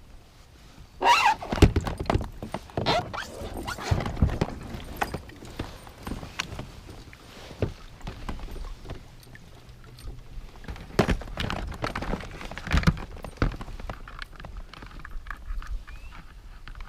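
Irregular knocks and clunks against a plastic fishing kayak's hull.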